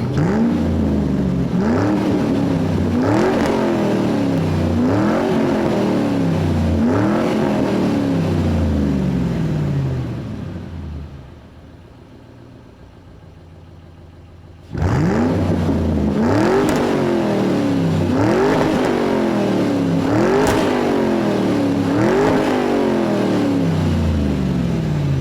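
Engine revved again and again, each rev a quick rise in pitch followed by a slower fall, about every two seconds. About ten seconds in the revving dies away to a quieter low running sound. It comes back abruptly about four seconds later and carries on with the same repeated revs.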